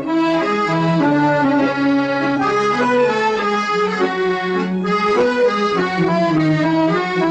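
Instrumental music led by an accordion-like melody over a steady bass line, in an Arabic folk style.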